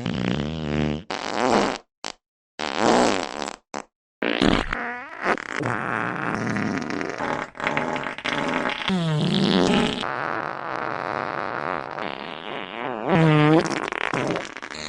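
A string of fart sounds, one after another, some pitched and wavering up and down, with short silent gaps about two and four seconds in and a long rasping one in the middle.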